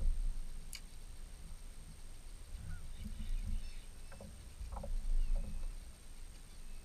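A few short honking calls from waterfowl on the lake over a steady low rumble of wind on the microphone.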